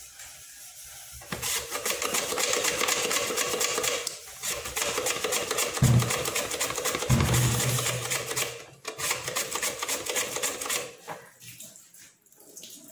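Vegetable dicing machine cutting cucumber into cubes: a fast, even clatter of small ticks with a steady hum, broken by two heavier thumps about halfway through. It stops near the end.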